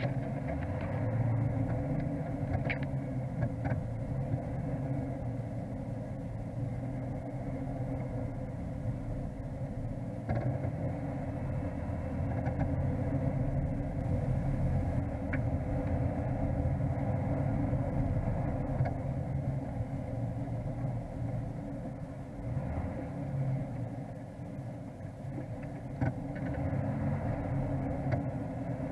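Off-road vehicle's engine running steadily at low speed, heard from inside the cabin, with a low rumble and occasional small knocks and rattles as it drives over a rough sandy track.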